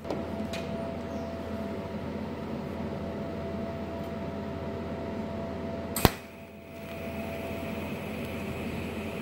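TIG welder striking its arc on a steel hinge: a steady hum, then about six seconds in a single sharp crack as the arc starts, followed by the steady hiss of the TIG arc.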